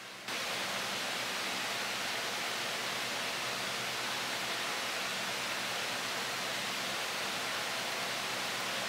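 Steady hiss with a faint low hum underneath, which jumps louder about a third of a second in and then holds level.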